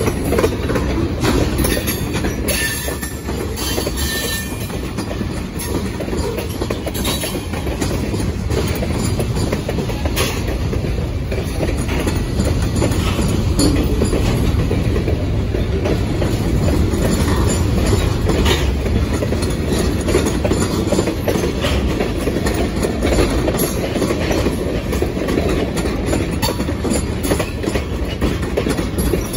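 Freight train's tank cars and covered hopper cars rolling past close by: a steady rumble with the clacking of steel wheels on the rails.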